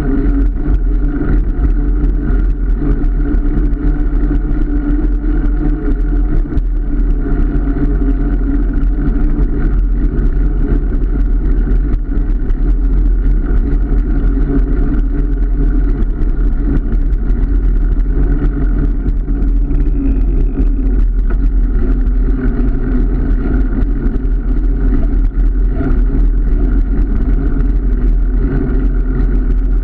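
Car engine and road noise holding a steady, even drone, the engine at a constant speed as the car cruises.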